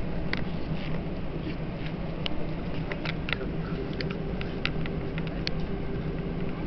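Steady low hum inside the passenger cabin of an Airbus A321, with a faint steady tone under it and scattered light clicks and ticks.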